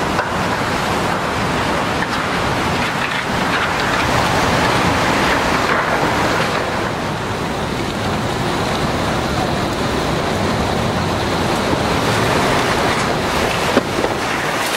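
Hurricane winds with driving rain: a loud, steady rush that swells in gusts, with a couple of sharp knocks near the end.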